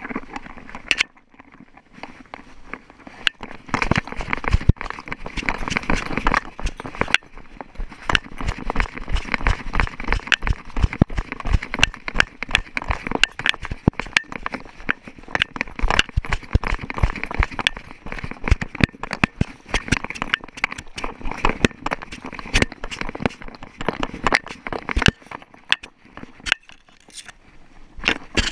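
Irregular crunching and crackling from a small dog, a Schipperke, moving over gravel and dry brush, heard close up through a camera strapped to its chest: paws scuffing stones and the mount knocking. It eases off briefly about a second in and again near the end.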